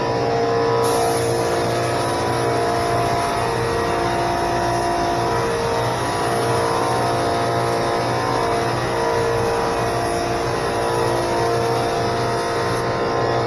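Small air compressor running steadily, with a high hiss of air that starts about a second in and stops shortly before the end.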